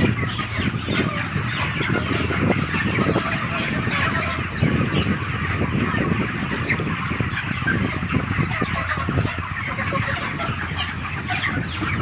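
A large flock of 36-day-old broiler chickens clucking and calling continuously, many birds at once, with scuffling and short knocks as birds are caught and handled.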